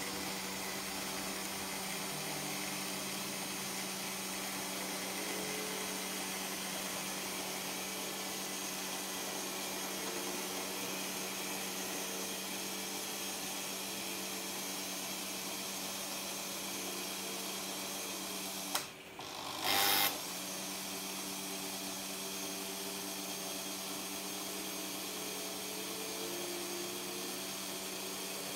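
Small electric motors of a Märklin H0 model railway whirring steadily with a constant hum, the motor-driven 7027 turntable turning its bridge. About two-thirds through there is a click, a brief drop in the sound, then a short loud burst of noise before the whirring resumes.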